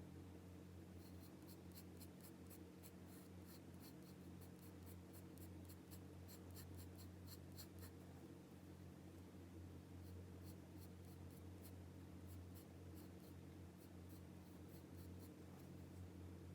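Graphite pencil scratching on paper in quick, short strokes, a few a second, with a pause of about two seconds halfway through. A faint steady low hum runs underneath.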